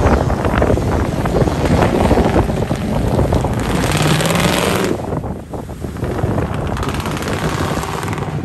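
Ford F-150 pickup revving as it spins its tyres through mud and throws it, with wind buffeting the microphone.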